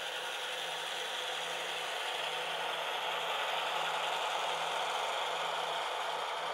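N scale model trains rolling past on sectional track: a steady mechanical rattle and whir of small metal wheels and locomotive motors. It grows louder toward the middle as the cars pass closest, then eases slightly.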